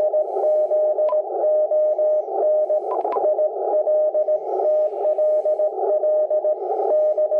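A Morse code (CW) signal coming from an ICOM IC-7300 HF transceiver tuned near 14.021 MHz on the 20-metre band. A single steady tone is keyed in dots and dashes over a band of static hiss.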